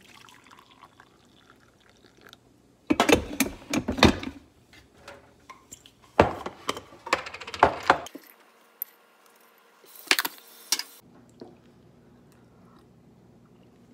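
Coffee poured from a drip coffee maker's carafe into a ceramic mug, then clinks and knocks of the carafe and mug on a kitchen counter, loudest about three seconds in and again around six to eight seconds.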